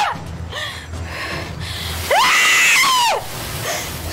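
A woman screaming in fright: one loud, high-pitched scream about two seconds in, rising and then falling away. Fainter gasps come before it, over a low steady rumble.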